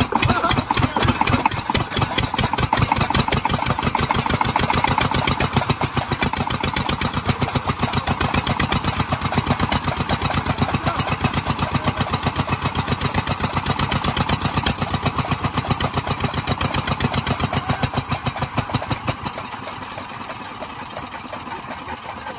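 Stationary single-cylinder diesel engine, just started by hand crank, running with a steady rapid beat of firing strokes. It gets noticeably quieter about three seconds before the end.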